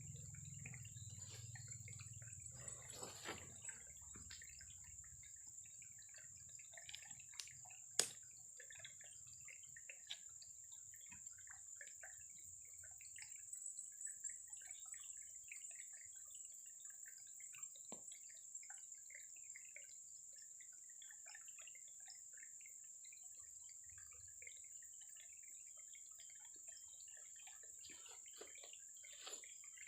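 Faint water dripping and trickling with scattered small ticks, and one sharp click about eight seconds in.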